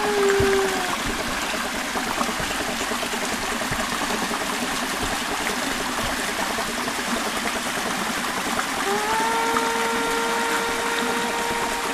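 A small mountain stream trickling and splashing steadily over rocks into a shallow pool. A steady pitched hum fades out with falling pitch in the first second, and comes back about nine seconds in, rising briefly and then holding steady for about two seconds.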